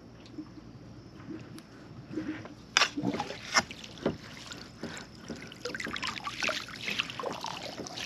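Dip net scooped through shallow water and lifted out, with water splashing and dripping from the mesh. It starts quietly, then a sharp knock about three seconds in and a run of splashing and small knocks.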